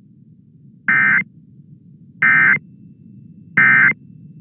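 Emergency Alert System end-of-message signal: three short, identical bursts of SAME digital data tones, evenly spaced about a second and a half apart, over a faint low hum.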